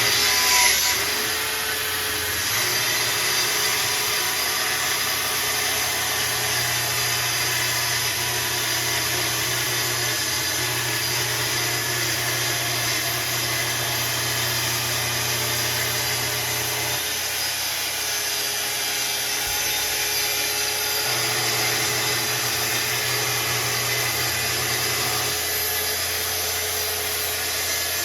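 Festool track saw running steadily through a long rip cut in a full sheet of sheet goods, with the dust extractor that starts with the saw running alongside it. The sound is loudest in the first second.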